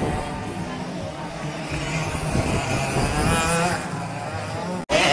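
Racing kart engine running at high revs as the kart approaches, its pitch rising and wavering as it accelerates. The sound drops out for an instant near the end.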